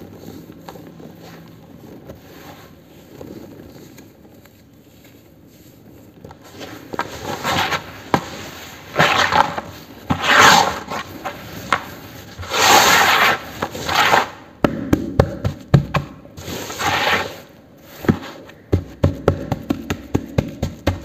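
Hands crumbling, rubbing and pressing damp, gritty cement crumbs in a bucket. Soft rustling at first, then loud crunchy rasps from about seven seconds in, and a run of quick crackling ticks near the end.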